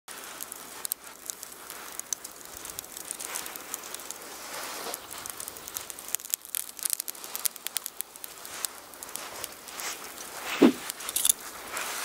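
Burning lump charcoal crackling and popping with irregular sharp snaps, with one louder low knock near the end.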